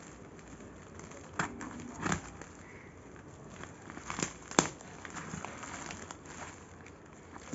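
Taped, plastic-wrapped parcel crinkling and crackling as it is handled, with a few sharp crackles, the loudest about four and a half seconds in.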